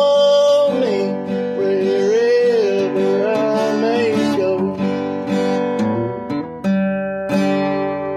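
A man singing an old-time bluegrass song while strumming an acoustic guitar with a flatpick. The voice stops about halfway through, and the guitar ends with two final strums whose chord rings out.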